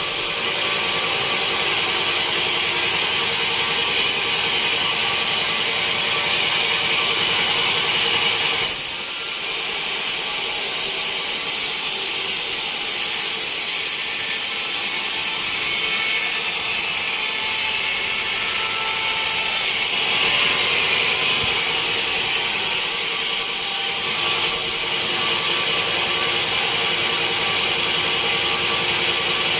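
Band sawmill cutting through a teak log: a steady, loud, hissing saw noise with a constant machine hum beneath it. The cutting sound shifts in tone about nine seconds in and again near twenty seconds.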